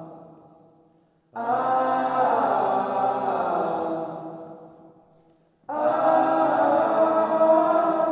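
Background music of held, chant-like voices singing long wordless notes. One phrase fades out at the start, a new one comes in suddenly about a second in and dies away, and another enters near six seconds.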